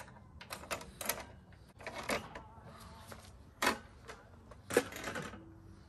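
Irregular sharp clicks and knocks of hard workshop tools and parts being handled and set down, about eight in all, with the loudest two about midway and near the end.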